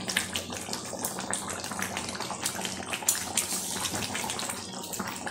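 Watery mutton curry boiling hard in a wide metal pot on full flame, a steady bubbling hiss dotted with many small pops and clicks, with a metal spatula stirring through it.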